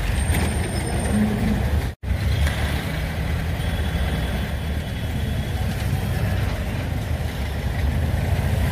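Steady low rumble of a motor vehicle's engine and road noise, cut off for an instant about two seconds in.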